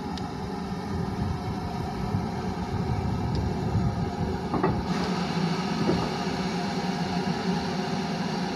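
Steam locomotive easing slowly up to its coaches: a steady low rumble, a light knock about four and a half seconds in, then a hiss of steam from about five seconds on.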